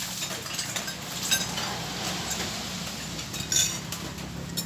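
Metal spoons and forks clinking and scraping against ceramic bowls and plates during a meal, with a few sharper clinks about a second in and at about three and a half seconds.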